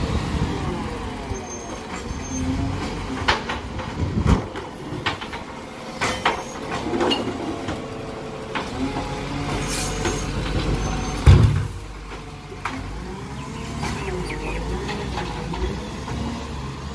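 Side-loader garbage truck's diesel engine running while its automated arm lifts and empties wheelie bins, with repeated clanks and knocks and one loud bang about eleven seconds in.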